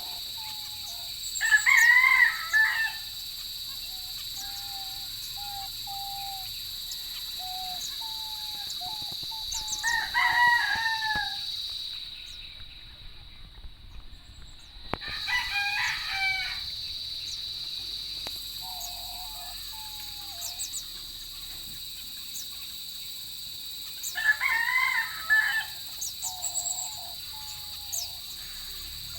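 Rooster crowing four times, each crow lasting about a second, over a steady high-pitched buzz.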